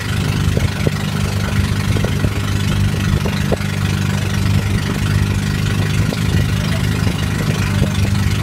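Small wooden boat's engine running steadily underway, a low even drone over a steady hiss of wind and water.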